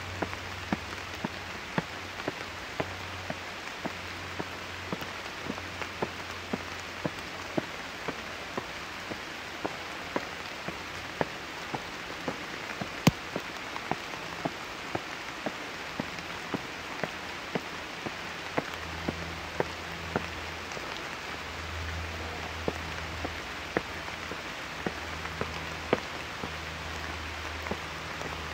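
Steady rain falling, with large drops landing close by as sharp taps about once or twice a second, one especially loud one about thirteen seconds in.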